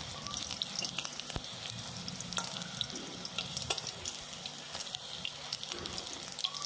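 Battered vadas frying in hot oil in a wok: a steady sizzle dotted with short clicks and pops.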